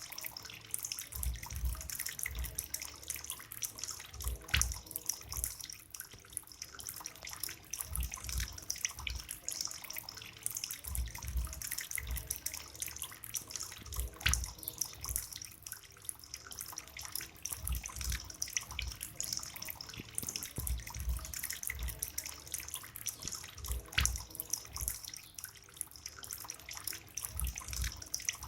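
Homemade bamboo water fountain running: a steady trickle and splash of water pouring from the bamboo spout, with soft low thuds. Three sharp knocks come about ten seconds apart.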